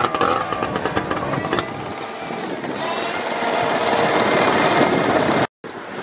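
Engine of a tracked lifeboat launch vehicle running steadily as it tows the inshore lifeboat on its trailer, with a rapid run of clicks or clatter in the first second and a half.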